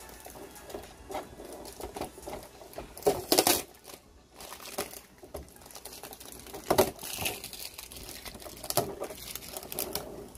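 Figure packaging being handled and opened: irregular rustling, scraping and small clicks, with louder swishes about three seconds in and again near seven seconds.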